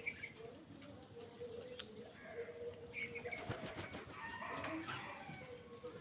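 A mixed flock of house crows and mynas calling around a food bowl: scattered caws and chirps, with a few wing flaps.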